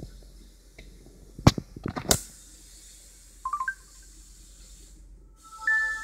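Handling knocks and clicks as the phone is picked up and handled, the two loudest about one and a half and two seconds in, then a short electronic chirp about three and a half seconds in. Near the end a Samsung SGH-U600 ringtone starts: a simple electronic melody of clean stepped tones.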